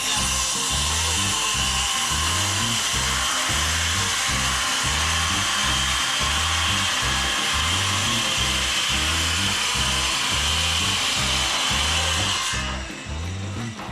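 A power tool runs steadily over background music with a repeating beat, then stops near the end.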